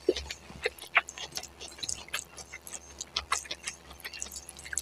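Close-miked chewing of spicy noodles: a quick, irregular string of sharp, wet mouth clicks.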